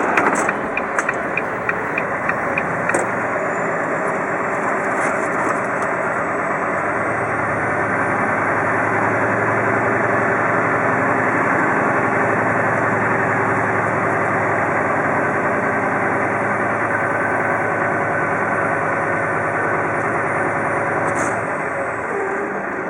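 Heavy truck engine running steadily, with a faint high whine that rises slowly and then holds.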